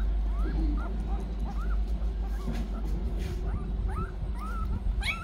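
Eleven-day-old puppies squeaking and whimpering in short rising cries, several a second, as they jostle each other for their mother's nipples while suckling. A low, steady rumble runs underneath.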